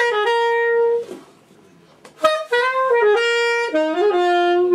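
Saxophone playing two short melodic phrases of held notes. The first ends about a second in; after a short gap, the second, longer phrase steps between notes and settles on a lower held note near the end.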